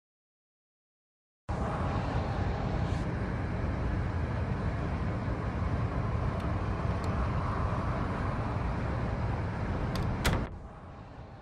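After about a second and a half of dead silence, a loud steady rushing noise sets in. About ten seconds in, a couple of sharp clicks like a door latch are heard as a hand works the doorknob. The rushing then drops away to quiet room tone.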